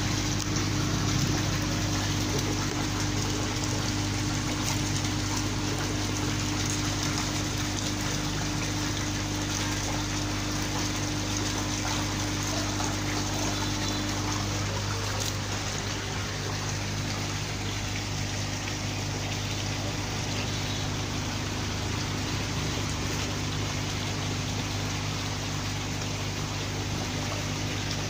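Water jetting from an inlet pipe into a koi holding tank, with a steady rushing and splashing at the surface. A steady low hum runs underneath, and one of its tones drops out about halfway through.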